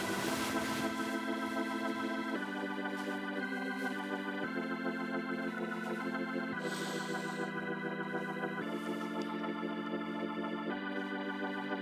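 Background music: sustained organ-like keyboard chords, changing about every two seconds.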